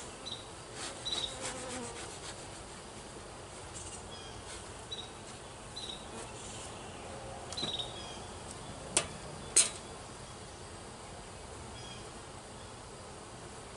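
Honey bees buzzing around an open hive, with short high tones falling in pitch repeating every second or two. Two sharp clicks come about half a second apart roughly two-thirds of the way through.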